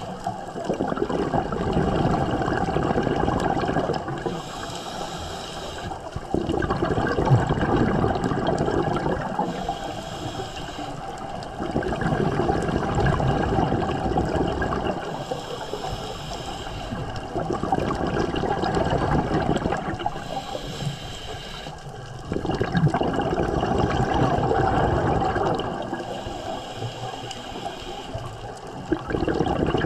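Scuba diver breathing through a regulator underwater. Loud bubbling rushes of each exhalation alternate with the quieter hiss of the inhalation, a breath about every five to six seconds.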